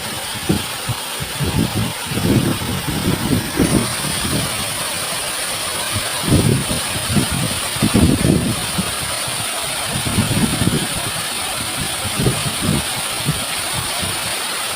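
Steady rushing of a waterfall, with irregular low rumbles of wind gusting on the microphone.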